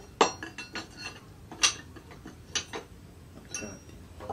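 Hammer tapping a leaf-spring steel axe head to seat it on its wooden handle: about nine irregular metallic clinks, each with a brief ring, the loudest just after the start and about a second and a half in.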